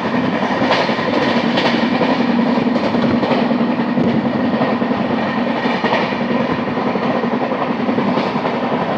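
LHB passenger coach running at high speed, heard from an open window: a steady, loud rumble and rush of the wheels on the rails, with the pounding of a flat wheel (a wheel worn flat on one spot). A few sharper clacks come in the first few seconds.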